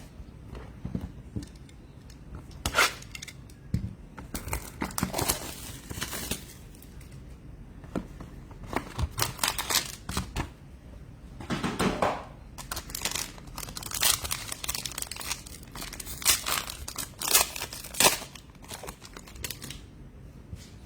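Plastic packaging crinkling and tearing in irregular bursts as a box of baseball cards is unwrapped and opened by hand.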